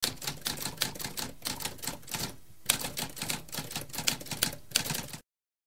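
Manual typewriter keys clacking in quick succession, a recorded typewriter sound effect, with a brief pause about two and a half seconds in; it stops abruptly about five seconds in.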